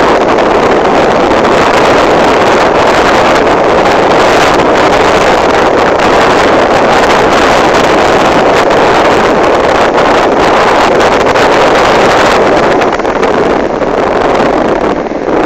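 Loud, steady rushing noise with no pitch to it, dipping briefly near the end.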